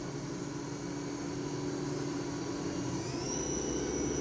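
Daewoo DMV-3016 vertical machining center's spindle running with a steady whine at about 2,500 RPM. About three seconds in, the whine rises in pitch as the spindle speeds up toward 4,000 RPM, then holds steady.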